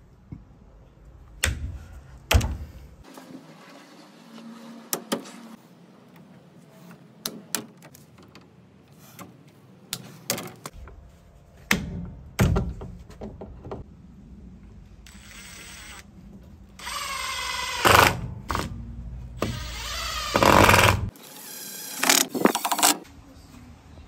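Hand ratchet PEX crimping tool working on copper crimp rings: a string of sharp metal clicks and clacks, with several louder, longer bursts of clatter in the last third.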